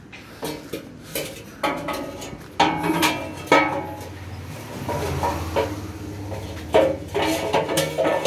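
Metal tools and parts clanking against each other: a series of sharp knocks that each ring briefly, with a low hum through the middle.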